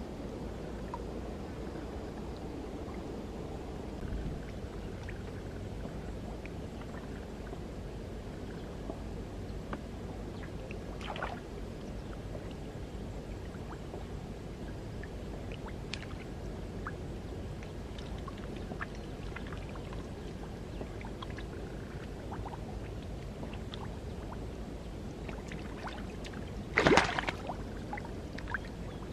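Shallow marsh water sloshing and trickling, with scattered small drips and clicks. One brief, loud splash near the end.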